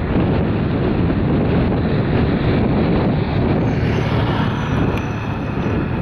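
Wind buffeting the microphone: a loud, steady, rough rumble.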